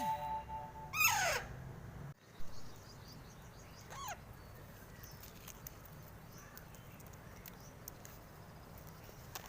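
Pet parrot calling: a loud falling squawk about a second in and a fainter one near four seconds, with faint scattered clicks between.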